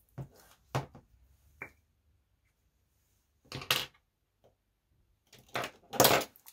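Scattered clicks, knocks and rustles from small makeup items such as a lip liner pencil and product cases being handled and set down. They come in three clusters, and the loudest is near the end.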